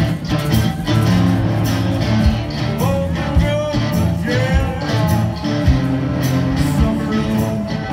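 Live rock band playing loud amplified electric guitar and drums, with a wavering lead melody from about three seconds in.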